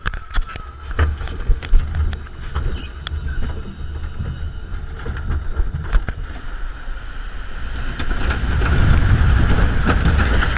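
Flume ride boat moving along its water channel: scattered clicks and knocks over a low rumble, then a rush of water and wind on the microphone building from about eight seconds in as the boat runs down the chute, loudest near the end.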